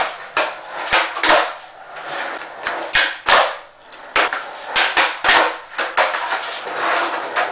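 Skateboard rolling across a floor, with repeated sharp clacks from the tail popping and the board and wheels slapping down as flatground flip tricks are tried, ringing in a small room.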